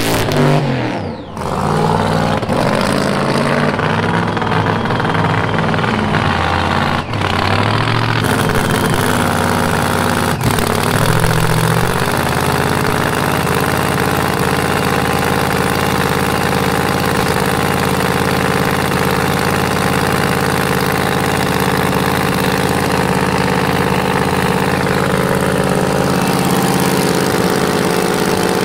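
Drag race car's engine running at the starting line: its pitch shifts up and down with throttle blips for the first twelve seconds or so, then it settles into a steady idle.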